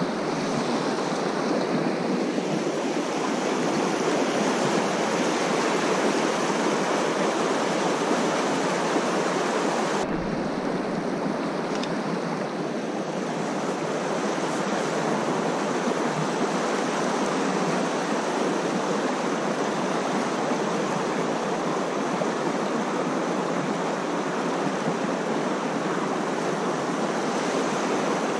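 Shallow river running fast over stones, a steady rush of water.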